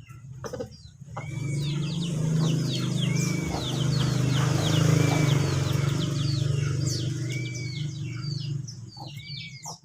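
Small birds chirping over and over in quick downward chirps, with a short arched whistle repeating every second or two. Under them a steady low hum starts about a second in and dies away near the end.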